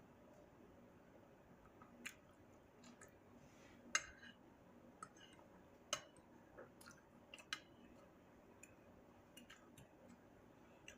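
Quiet eating sounds: scattered soft mouth clicks and smacks while chewing food, the sharpest about two, four, six and seven and a half seconds in, over near silence.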